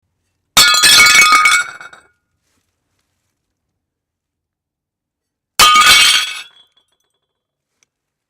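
Two ceramic plates smashing, one about half a second in and another about five seconds later, each a sharp crash followed by about a second of clinking, ringing shards.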